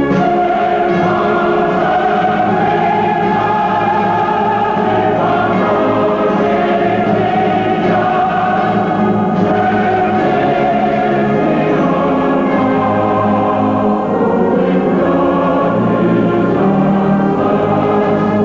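Choral music: a choir singing long, held notes that change chord slowly.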